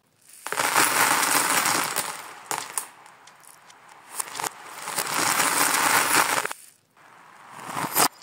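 Handfuls of small plastic beads and toy pieces clattering across a hard floor, three times. The clatter is played backwards, so each burst swells and then cuts off suddenly instead of dying away.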